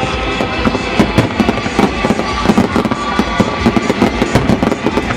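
Fireworks display going off in a dense barrage: rapid, irregular bangs and crackles over a steady rumble, many bursts a second.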